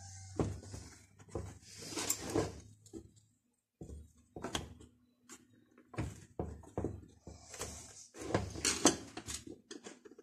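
Hands handling and fitting small rubber anti-vibration mounts and their metal bolts on a chainsaw body: irregular clicks, taps and light rustling of parts against plastic and metal.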